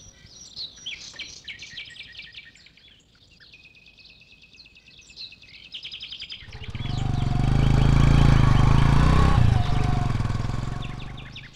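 Birds chirping for the first half, then a motor vehicle passes close by. Its engine noise swells about halfway through and fades away near the end.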